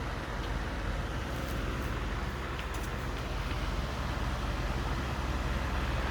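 Robot vacuum cleaner running: a steady motor and suction drone, with a few faint light ticks.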